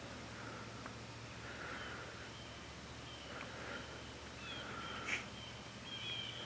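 Woodland songbirds singing thin, high whistled notes over a quiet outdoor background, with a sharp click about five seconds in.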